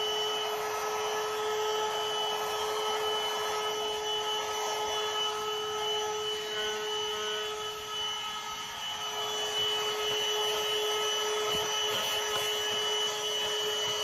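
A 12-volt handheld car vacuum cleaner running steadily: a constant motor whine over the rush of suction as its brush nozzle works the seams of a leather seat cover. The suction rush eases briefly about eight seconds in while the motor keeps running.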